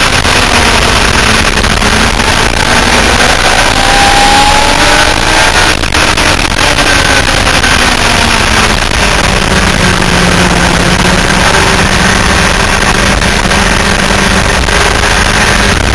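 Sport motorcycle engine at speed on a race track, heard through an onboard camera under heavy wind rush; its note rises and falls with the throttle through the corners, then holds steadier near the end.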